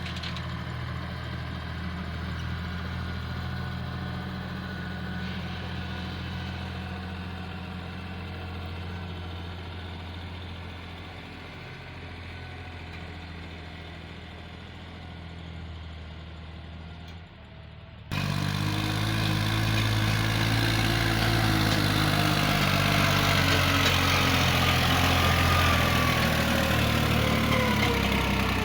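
Diesel engine of a large excavator running steadily with a low hum. About two-thirds of the way through the sound jumps abruptly much louder, with more noise and a slowly falling whine.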